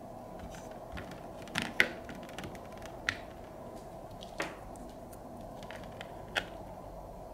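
Scattered clicks and taps of small plastic toy pieces being handled, a few seconds apart, over a steady low background hum.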